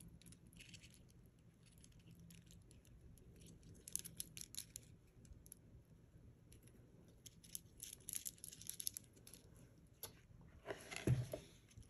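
Faceted amethyst beads of a necklace clicking lightly against each other as it is handled, in scattered runs of faint clicks. A brief louder rustle comes near the end.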